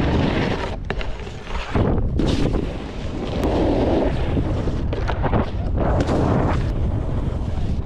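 Snowboard riding and scraping over snow, with wind rumbling on the rider's body-worn mic.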